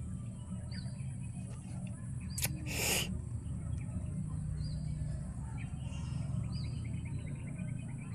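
A bird repeating a short, high, arched chirp every second or two over a steady low rumble and a steady high hiss. A click and then a brief loud burst of noise come about two and a half to three seconds in.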